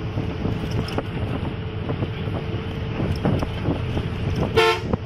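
Wind buffeting the microphone outdoors: a steady low rumble with uneven gusts. About four and a half seconds in, a brief high pitched call with a clear tone cuts through once.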